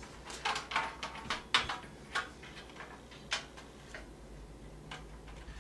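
A series of light clicks and taps as a motherboard is handled and slid into a small computer case, most of them in the first three seconds or so.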